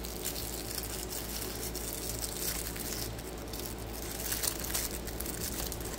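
Packaging crinkling and rustling in irregular bursts as a model part is unwrapped by hand, over a faint steady low hum.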